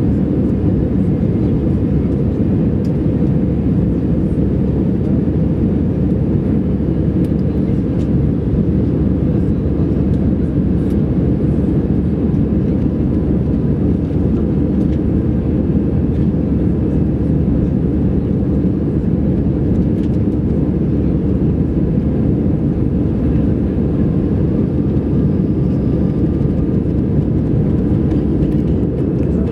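Airbus A319 cabin noise in the climb after takeoff: a steady, low drone of the jet engines and airflow over the fuselage, without change.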